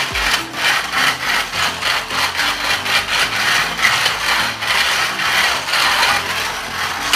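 Two battery-powered toy slot cars running laps on a plastic track: their small electric motors whirring and the cars rattling along the plastic slot, swelling and fading in quick, uneven pulses as they go round.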